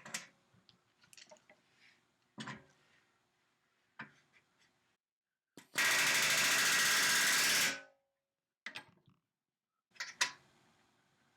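Pneumatic rivet gun hammering a rivet against a bucking bar in one rapid-fire burst of about two seconds, midway through. Before and after it come light clicks and knocks of tools and aluminium parts being handled.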